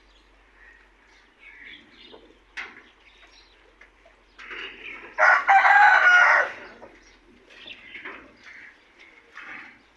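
A rooster crowing once, a loud call of about two seconds near the middle, with fainter short bird calls before and after it.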